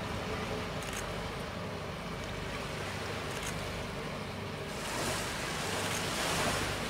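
Lifeboat engine running steadily over the sound of waves and water. A rush of noise swells about five seconds in and peaks near the end.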